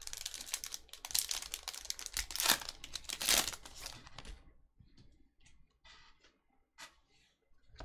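Foil wrapper of a Panini Select soccer trading card pack being torn open and crinkled, with the two loudest crinkles about two and a half and three and a half seconds in. Afterwards only faint ticks and rustles as the stiff chromium cards are shuffled in the hands.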